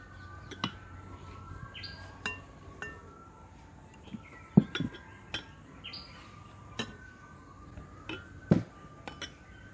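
Sharp clinks and knocks on a glass mixing bowl as chopped bell pepper is tipped in, several times, the loudest about halfway and near the end. Birds chirp faintly in the background.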